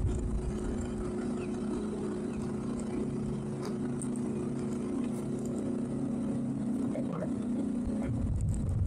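Towboat's engines idling steadily: an even low hum with a few steady tones, and faint knocks of lines being handled on deck.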